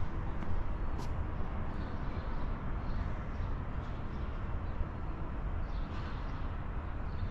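Outdoor city ambience: a steady low rumble of distant traffic, with faint high chirps and a single sharp click about a second in.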